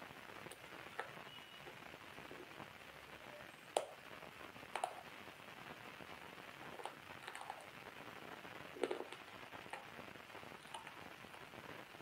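Faint, scattered crisp crunches and crackles over a steady hiss, the loudest about four, five and nine seconds in: a hard, crunchy white snack being bitten and chewed.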